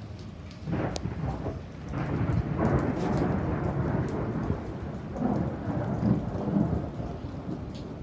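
Monsoon rain falling on a flooded yard, with thunder rumbling for several seconds starting about a second in. Scattered sharp raindrop ticks sound over it.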